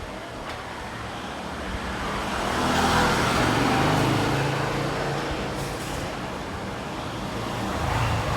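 Road traffic: a motor vehicle's engine and tyre noise swells to a peak about three seconds in, then fades back to steady traffic hum.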